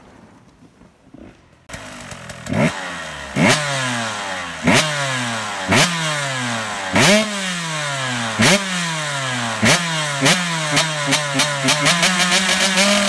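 KTM 125 two-stroke engine with an FMF exhaust revved in sharp throttle blips, starting about two seconds in: each one rises quickly in pitch and drops back, about once a second, coming faster near the end before the engine holds a steady note.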